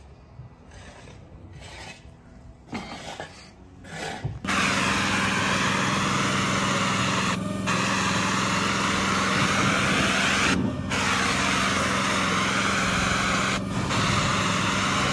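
Spray wand blasting black waterproofing coating onto a concrete-block foundation wall: a loud, steady spray hiss over a low pump hum starts about four seconds in. The spray breaks off three times for a moment, about three seconds apart.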